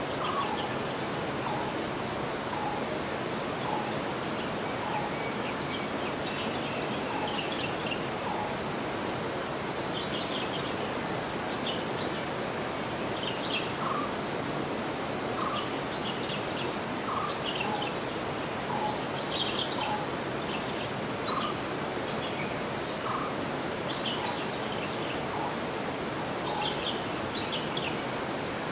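Natural outdoor ambience: a steady rushing noise with birds giving many short, high chirps and repeated lower notes throughout.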